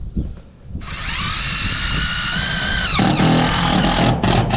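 DeWalt cordless drill driving a sheet-metal screw through a chimney support base into a metal roof. About a second in, the motor whines up to speed and holds steady, then drops to a lower, labouring pitch as it comes under load. It stops just before the end.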